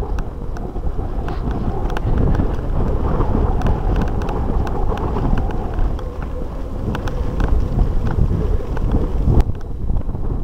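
Wind buffeting the microphone of a camera riding along on a mountain bike, a loud, steady low rumble. Scattered sharp clicks and knocks from the bike rattling over the rough dirt track run through it.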